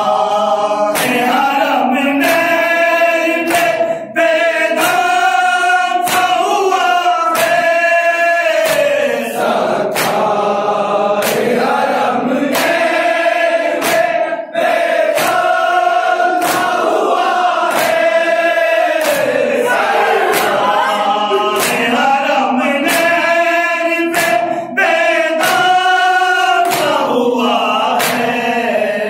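A group of men chanting a noha, a Shia lament, in unison with long drawn-out lines. Sharp slaps about once a second keep the beat, the chest-beating of matam.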